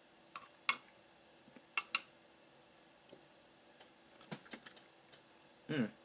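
Metal spoon clicking and scraping against a glass bowl as it scoops hot cereal: a few sharp taps early on, a quick cluster of clinks past the middle, then a brief sound from the mouth near the end.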